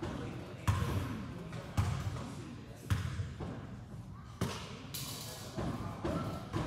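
Basketball bounced on a hardwood gym floor, a series of thudding bounces about a second apart: a free-throw shooter's dribble before the shot.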